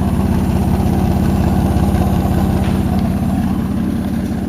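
A 1999 Chevrolet S10's 4.3 L Vortec V6 idling steadily, heard at the dual exhaust tips.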